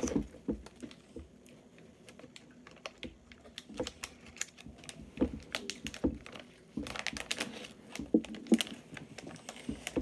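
Plastic snack-cake wrapper being opened and handled: irregular crackles and clicks, busiest about two-thirds of the way through.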